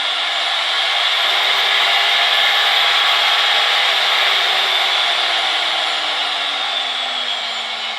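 Electric motor of a homemade drill press running up to speed, running with a dense whirring noise, then slowing down again. Its pitch rises over the first couple of seconds and falls steadily from about halfway through.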